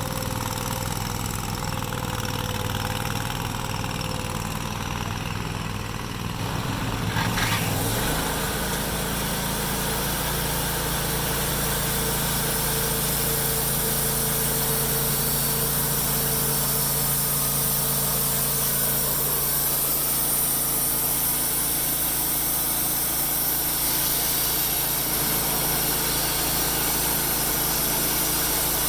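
An engine running at idle, then revving up about seven seconds in and holding a steady higher speed.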